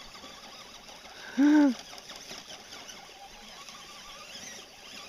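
Faint whine of a radio-controlled 4x4 truck's electric motor as its tyres spin in place and dig into the dirt. A short vocal exclamation cuts in about a second and a half in and is the loudest sound.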